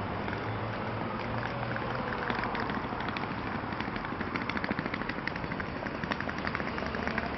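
City-street ambience: a steady rumble of background noise, with a run of short sharp clicks from about two seconds in, footsteps on the paving.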